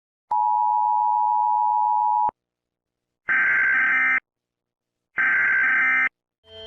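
Emergency Alert System audio played in reverse: a steady electronic tone held for about two seconds, then two short screeching digital data bursts of the kind that carry an alert's coded header, each under a second long with a gap between.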